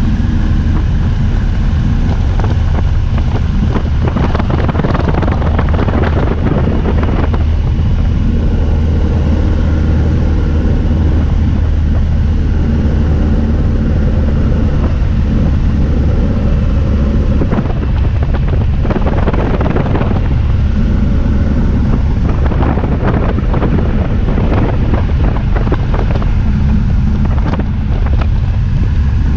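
Single-engine light aircraft's engine and propeller droning steadily, heard from inside the cabin, with wind rushing and buffeting the microphone in gusts.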